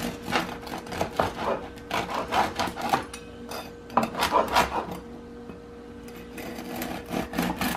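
Bread knife sawing through the crunchy crust of a freshly baked no-knead loaf: a run of rasping strokes, about two a second, that dies down for a second or so past the middle and picks up again near the end.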